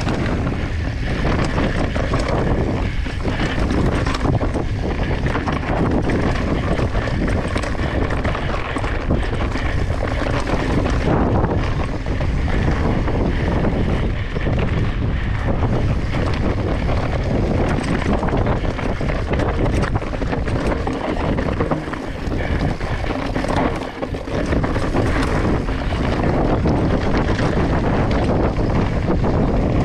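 Steady wind rush on the microphone from a mountain bike rolling along a dry, rocky dirt trail, mixed with the noise of the tyres over dirt and loose stones. It dips briefly about three-quarters of the way through.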